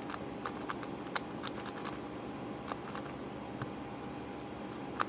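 Plastic twisty puzzle being turned by hand: irregular sharp clicks of layers snapping into place, the loudest near the end. The puzzle is still unset-up and turns sluggishly.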